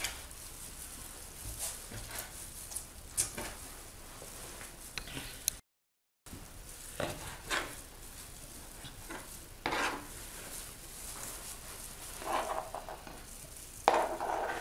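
Knife cutting blanched baby octopus into small pieces on a plastic cutting board: irregular taps and scrapes of the blade on the board, broken by a short gap of silence a little before halfway. Near the end the blade scrapes the cut pieces across the board onto a plate, the loudest sounds in the stretch.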